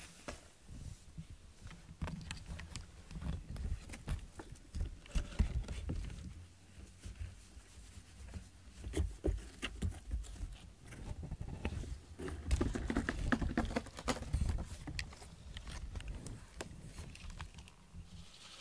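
Irregular soft rustles, clicks and low thumps of a cat shifting on a corrugated cardboard scratcher while being stroked.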